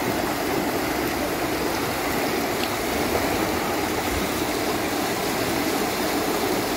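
Muddy floodwater swollen by heavy rain rushing fast and turbulent along a concrete drain channel, a steady, unbroken noise.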